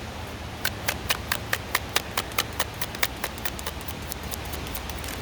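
Tarot cards being shuffled by hand: a quick, even run of sharp card clicks, about four to five a second, that thins out and fades near the end, over a steady background hiss.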